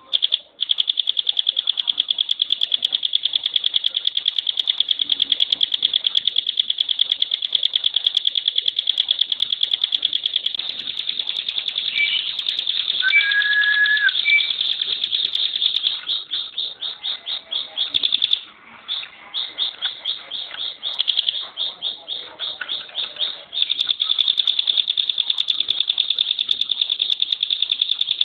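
A ciblek pinus, a mountain prinia, sings its 'tembakan' song: a very fast, dense, high-pitched trill that runs almost without a break. About two-thirds of the way in, the trill breaks up into short runs of rapid notes, then runs on continuously again. A brief lower whistle comes near the middle.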